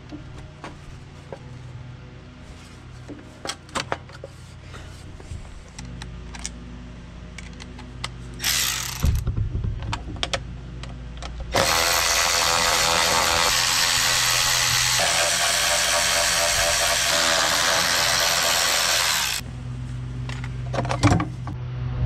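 Cordless electric ratchet unscrewing the bolts of a small engine's blower-housing cover: a short run, then a long steady run of about eight seconds. Before it come light clicks and taps of hand work on the engine.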